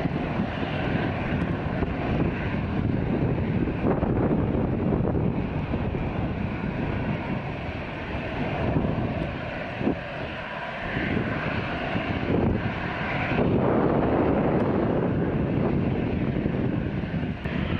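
Jet engines of an Airbus A320-214, its twin CFM56-5B turbofans, running as the airliner moves along the runway: a continuous rushing roar that dips briefly about ten seconds in and grows louder again a few seconds later.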